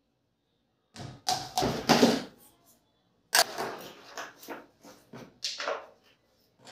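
Unpacking an electric air blower: knocks and clatter of hard plastic parts being handled and set down, with rustling and scraping of the cardboard box. Two bouts of handling, about a second in and again from about three seconds in, with a quiet gap between.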